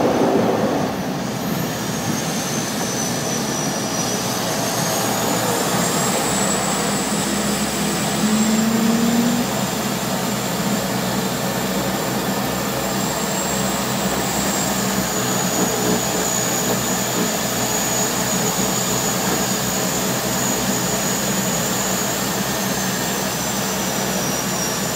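Cabin noise of a de Havilland DHC-6 Twin Otter floatplane on its landing run on water: the steady drone of its two PT6A turboprop engines with a high turbine whine that drifts slightly in pitch, over the rush of spray off the floats. The noise eases a little about a second in.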